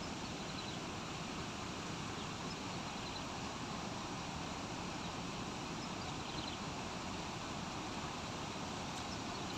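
Steady outdoor background noise, heaviest in the low end, with faint high chirps of three or four quick notes every few seconds.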